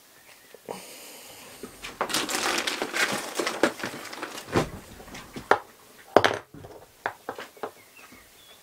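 A small plastic bottle of Zap-a-Gap super glue being handled and opened: a steady scraping for about a second, then rustling and a run of sharp plastic clicks, the loudest about six seconds in.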